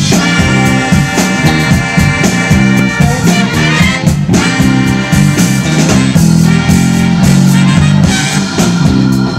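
Live rock band playing with electric guitars, bass, drums and a horn section.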